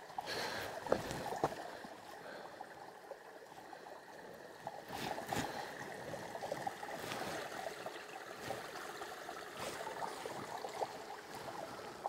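Faint trickle of a small, shallow creek running over rocks, with a few soft clicks.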